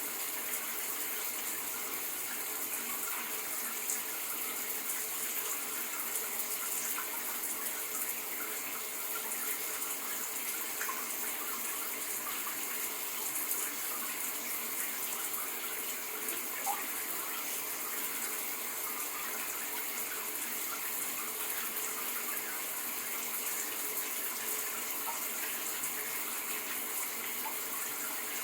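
A shower running steadily: a constant hiss of water spray, with small splashes now and then.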